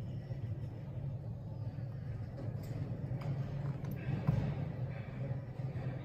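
A steady low hum from background machinery, with a few faint clicks near the middle.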